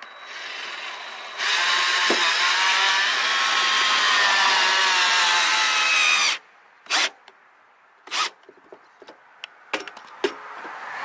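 Cordless drill driving a screw into a steel roofing panel: one long run of about five seconds, its whine sinking slightly in pitch toward the end before it stops sharply, then two short bursts of the drill about a second apart.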